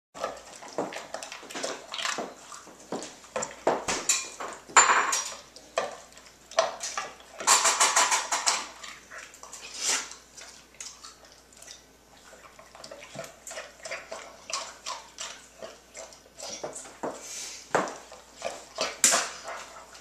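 Dog eating dry food from a stainless-steel bowl: irregular crunching and chewing, with the food clicking and rattling against the metal bowl. The rattling gets thicker in two short spells, about five and eight seconds in.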